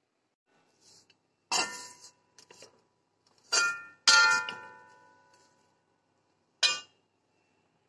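Glass pan lid clanking against the cooking pan as it is lifted off and set down: a handful of separate knocks, the louder ones ringing on briefly.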